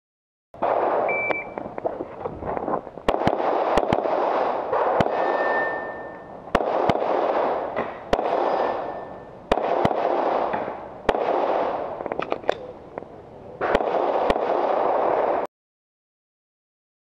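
A short electronic beep from a shot timer about a second in, then a fast string of shots from a semi-automatic pistol fired in quick pairs and groups, each crack followed by a loud ring of range echo. The firing stops abruptly about a second before the end.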